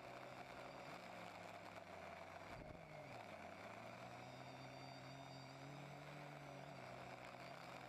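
Electric motors and propellers of a TBS Discovery quadcopter running, faint, with several steady whining tones; their pitch dips and climbs again about three seconds in.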